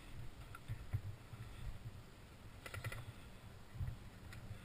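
Low thumps and rustling from a player's footsteps and gear while creeping through long grass, with a quick run of sharp clicks a little past halfway.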